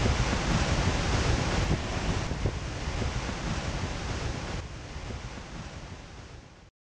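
Wind buffeting the microphone over the wash of surf, fading out steadily and then cutting off to silence just before the end.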